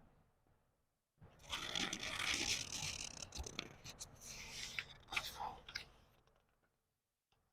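A book page being turned slowly: paper rustling with a few crisp crackles. It starts about a second in and fades out over several seconds.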